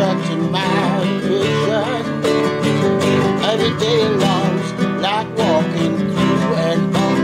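An acoustic guitar strummed in a steady rhythm, with a man's voice singing a wavering melody over it.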